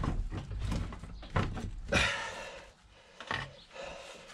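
Handling noise from a car driveshaft and its outer CV joint being worked on a wooden workbench to line up the splines: irregular clicks, knocks and rubbing, with the loudest knock about two seconds in.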